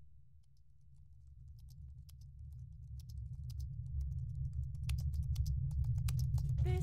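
Computer keyboard typing: sparse key clicks beginning about a second and a half in, growing faster and louder, over a steady low rumble.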